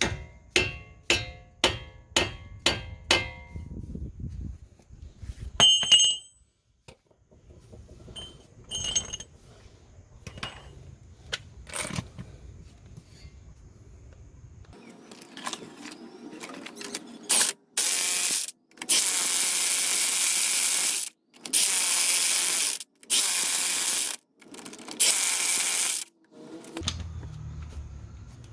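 Ratchet wrench clicking in a quick run of strokes, then a power tool run in several loud bursts, each one to two seconds long.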